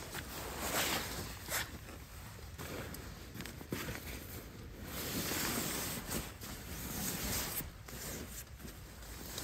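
Sleeping bag and clothing fabric rustling as they are shifted and pulled up, in several long, irregular swishes.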